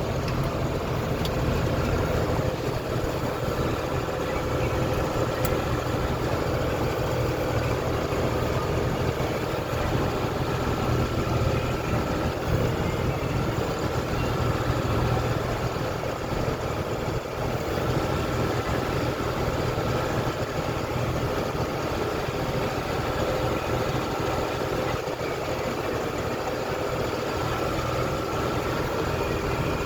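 Farm tractor engine running steadily under load at PTO speed, driving a round baler as it picks up hay, with a faint steady whine over the engine hum.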